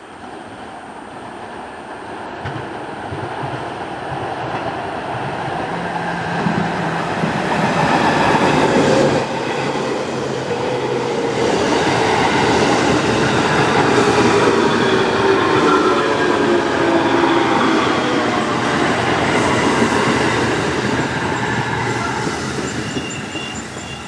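Eight-car JR Kyushu 811 series electric train, two four-car sets coupled, approaching and running past. The wheel and rail noise builds over the first several seconds, stays loud as the cars go by, and falls away near the end.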